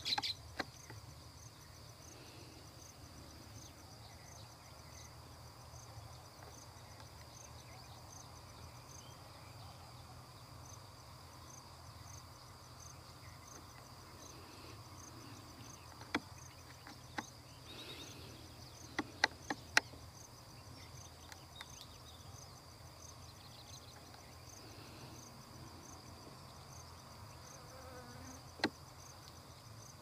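Insects trilling steadily, with a regular pulsing chirp over a constant high tone, and a few sharp clicks, the loudest a quick run of four a little past the middle.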